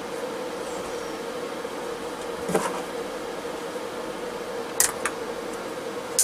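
Steady buzzing hum under four sharp clicks of small parts being handled, as wiring plugs are fitted back onto a diesel heater. The clicks come about two and a half seconds in, twice close together near five seconds, and once more at the end.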